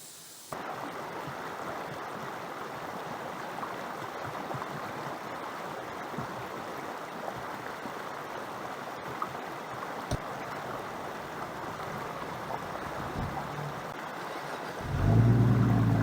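A steady rushing noise that starts abruptly, then a vehicle engine comes in loudly near the end.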